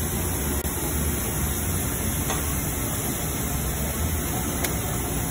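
Molina e Bianchi boot-lasting machine running with a steady low hum and air hiss; the hum drops off about four and a half seconds in, at a sharp click.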